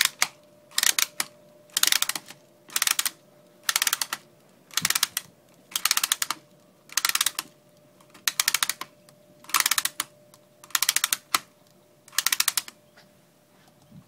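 Drum magazine of an American 180 being wound by hand: about a dozen short runs of rapid ratchet clicks, roughly one a second, as the top of the pan is twisted turn by turn to tension its spring.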